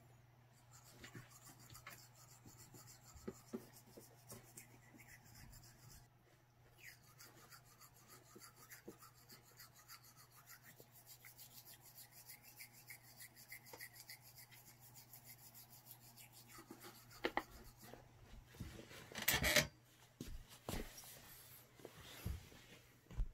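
Cats' claws and paws scratching and rubbing at a cardboard box: a run of faint scratches and soft taps, with a few louder scrapes near the end.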